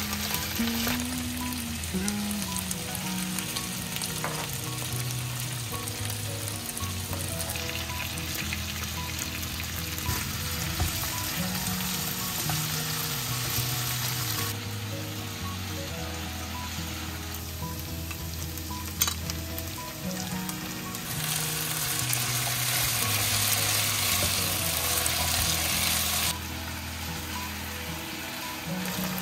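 Diced potatoes and chicken hearts sizzling as they fry in oil in a frying pan, stirred with a wooden spatula, the sizzle getting louder and softer from one stretch to the next. Background music plays throughout.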